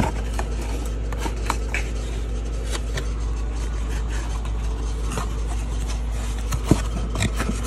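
Light scrapes and clicks of a cardboard heat-bulb box being handled and opened, over a steady low machine hum.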